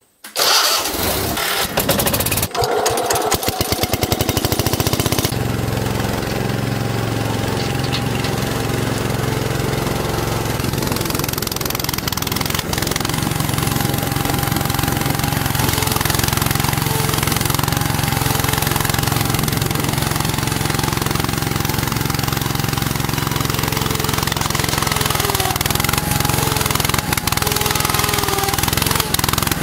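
Ford garden tractor's engine running loud and steady while the front-end loader digs into dirt, with a rapid firing beat in the first few seconds before it settles.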